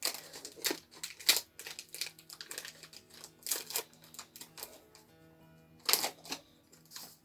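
Foil booster pack wrapper being torn open and crinkled by hand, a string of sharp crackles with the loudest near the start and again about six seconds in, over quiet background music.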